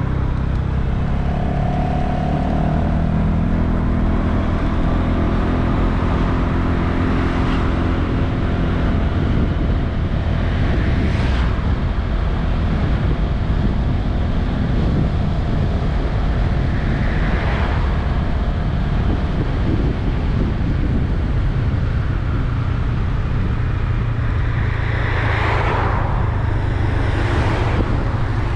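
Honda Vision 110 scooter's single-cylinder engine running steadily under way, with wind and road noise. Other vehicles pass several times, most loudly near the end.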